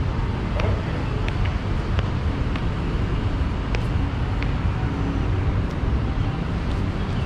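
Steady low rumble of road traffic, with occasional faint clicks.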